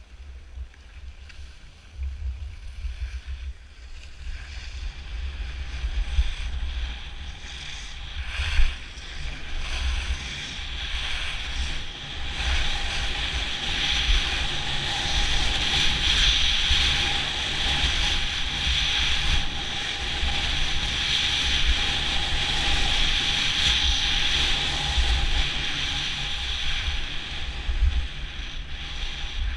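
Wind buffeting the GoPro's microphone while skiing downhill, with the hiss of skis sliding on packed, groomed snow; the hiss grows louder about twelve seconds in as the skier picks up speed. A single sharp knock about eight seconds in.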